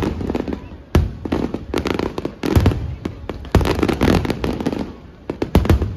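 New Year fireworks display: dense crackling and popping of shells with heavy low booms coming in quick succession, the biggest bursts about a second apart.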